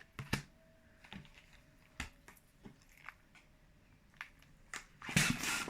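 Scattered light clicks and taps of a long modelling balloon and pump being handled, then about five seconds in a quick series of airy whooshing strokes as a hand pump starts inflating the balloon.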